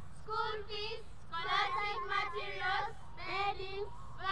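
A group of children singing together in unison, in short phrases of held notes with brief breaks between them.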